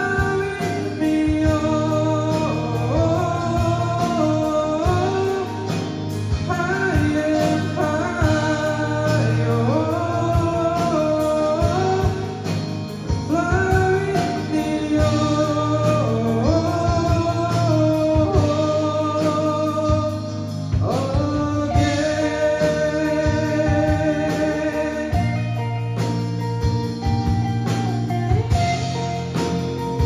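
Live rock band playing: electric guitars, bass guitar and drums, with a melodic lead that bends and slides between notes over the steady beat.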